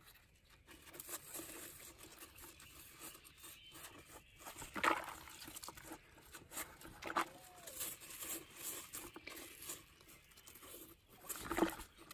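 Squash leaves rustling and crackling as hands scrape squash bug egg clusters off them and tear away bits of leaf. There is a sharper crackle about five seconds in, and the hands splash in a bucket of soapy water near the end.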